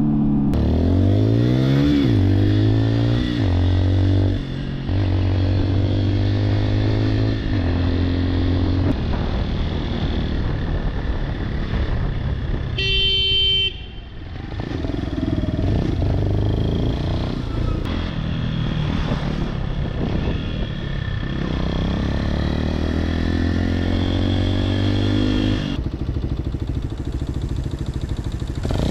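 Motorcycle engine heard from the rider's own bike, its pitch rising with acceleration and dropping back at each gear change, several times over. About halfway through comes a short vehicle horn blast.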